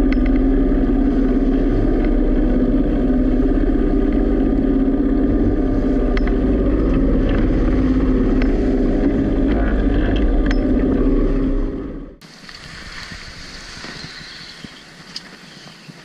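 A sailboat's inboard diesel engine running steadily, loud, with wind on the microphone. About twelve seconds in it gives way to quieter wind and water rushing past the hull.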